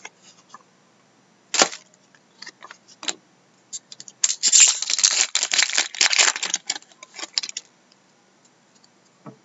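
Trading-card packaging being handled: a sharp click about a second and a half in, then a few seconds of dense crinkling and rustling.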